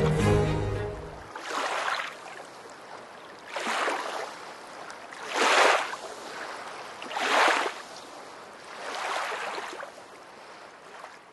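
String music ends about a second in, then sea waves wash in and draw back, five swells about two seconds apart that fade near the end.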